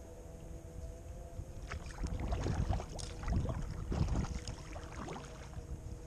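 Kayak paddle strokes: the blades dip in and water splashes and drips irregularly for a few seconds, starting about two seconds in.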